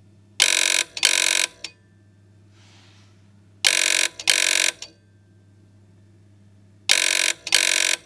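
Loudspeaking Telephone No. 2a's buzzer-like ringer sounding an incoming call in the British double-ring pattern: three pairs of short buzzing rings, each pair about three seconds after the last.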